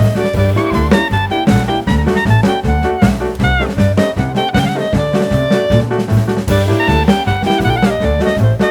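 Background music: upbeat swing-jazz with a walking bass, drums and a horn melody.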